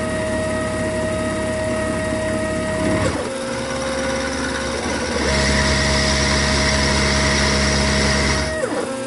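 Milling machine running a 1/4-inch ball end mill across cast iron, a steady machine whine that changes tone about three seconds in and grows louder, with added hiss, from about five seconds in until shortly before the end.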